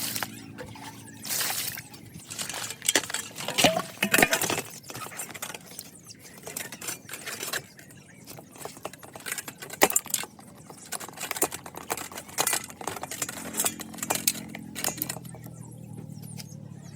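Small hard keyboard parts clicking and clattering as they are handled, in a rapid irregular run of sharp clicks and light clinks, some loud.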